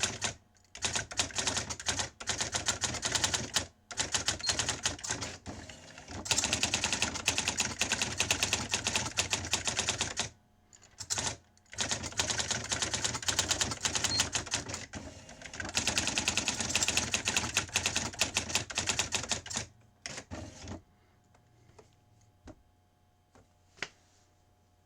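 Sears Electronic Communicator 2 daisy wheel electronic typewriter typing, its print wheel striking in quick runs of clicks broken by short pauses. It falls quiet about 21 seconds in, leaving a faint hum and a couple of single clicks.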